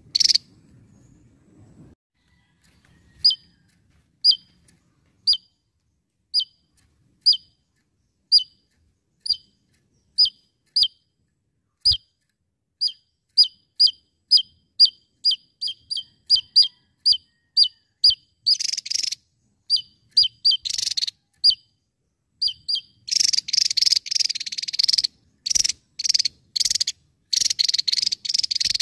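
Javan tesia singing: sharp, high, down-slurred single notes about once a second that quicken to two or three a second, then break into longer rapid rattling bursts in the second half.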